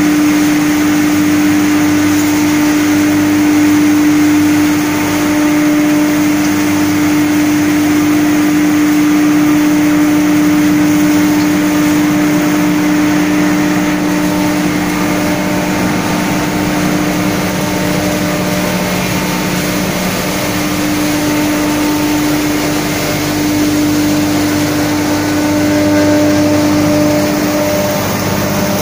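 Straw bale crushing and grinding machine, a rotary tub cutter combined with a hammer mill and driven by electric motors with a blower fan, running steadily while it grinds straw. A constant loud drone with a strong low hum.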